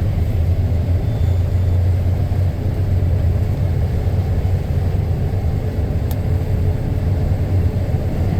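Large diesel farm machinery running steadily in the field: a deep, even engine rumble with no change in speed.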